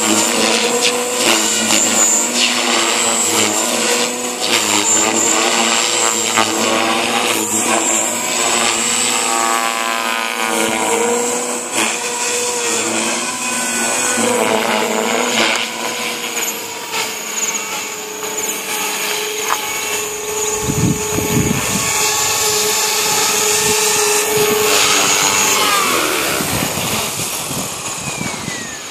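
JR Forza 450 radio-controlled helicopter flying, its rotor and motor whine rising and falling in pitch as it manoeuvres. Near the end it lands and the whine falls away as the rotor spins down.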